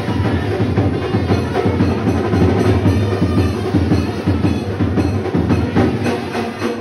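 Loud drum-led music with rapid, closely packed drum strokes and a heavy low thud, part of a gondhal festival's celebrations.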